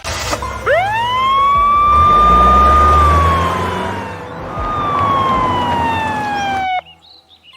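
A siren rises quickly to a high tone, holds it, then slowly falls in pitch, over a low engine-like rumble. It cuts off suddenly near the end.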